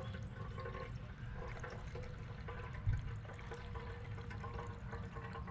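Gasoline being poured into the fuel tank of a Simpson pressure washer's engine, a steady pour of liquid filling the tank, with a brief bump about halfway through.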